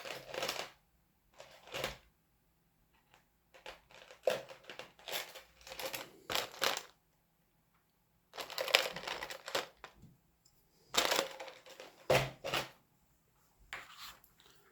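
Someone rummaging among small objects, which clatter and shuffle in irregular bursts with short pauses between them, while searching for a bottle of decal-setting solution.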